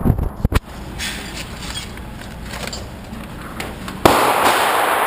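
Pistol shots on a firing range: sharp cracks in the first half-second, then a single shot about four seconds in whose echo dies away over a second or so.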